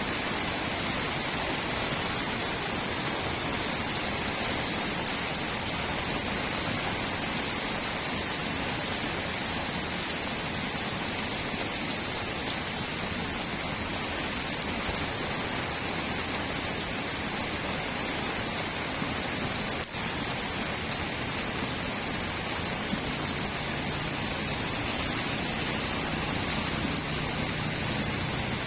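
Steady rain falling on a street, an even hiss of drops with water gurgling, and a single brief click about two-thirds of the way through.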